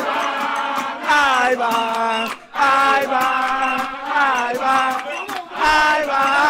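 A group of voices singing a chant together in sung phrases that glide up and down in pitch, with a brief break about two and a half seconds in.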